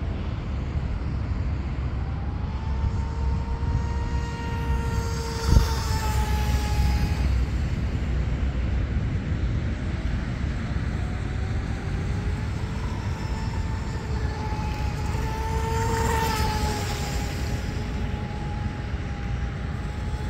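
Electric RC mono boat's brushless motor and propeller whining as the boat makes two high-speed passes, the whine rising and then falling in pitch each time. A single sharp knock comes about five seconds in.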